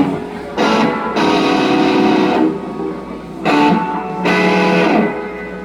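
Electric guitar strumming single chords through an amplifier during a sound check: about four chords, each left to ring for a moment, dying away near the end.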